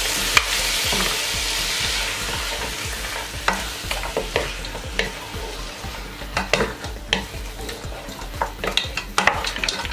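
Wooden spatula stirring grilled goat meat, onions and peppers in a hot nonstick pot: a steady sizzle that fades after the first few seconds, with knocks and scrapes of the spatula against the pot, more frequent near the end.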